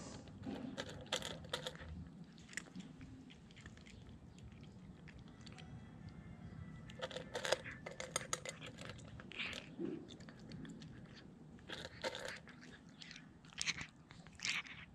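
A cat crunching dry kibble, in bursts of rapid crunching with a lull of a few seconds in the middle.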